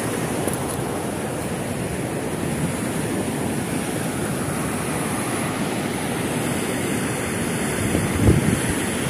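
Steady rushing of muddy floodwater flowing past the bank, with a brief low bump near the end.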